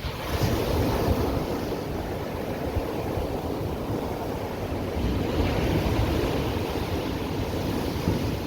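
Ocean surf: a wave breaks right at the start and the rush of churning, washing water goes on, swelling and easing, with wind rumbling on the microphone.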